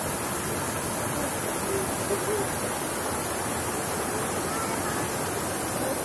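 Steady rush of a waterfall and its stream cascading over boulders, a constant even roar of falling water.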